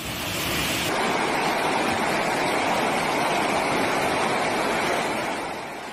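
Floodwater rushing steadily, a dense, even sound of flowing water.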